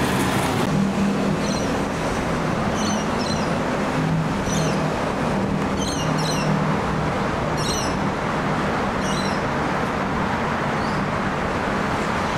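Steady roar of a distant jet airliner in flight, with a bird giving short high chirps over and over, about every second and a half.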